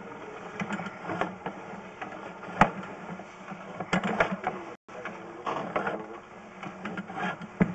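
Irregular mechanical clicking and rattling from a sewer inspection camera's push cable and reel as the cable is fed down the drain line.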